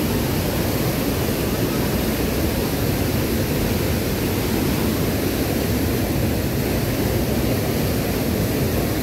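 Mountain stream rushing over boulders in a cascade: a loud, steady roar of white water.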